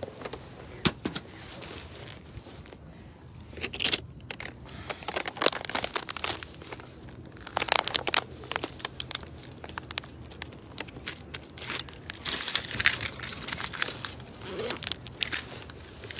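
Phone microphone rubbing and knocking against a cotton hoodie while being carried, giving irregular crackling scrapes and bumps. The loudest stretch comes about twelve seconds in.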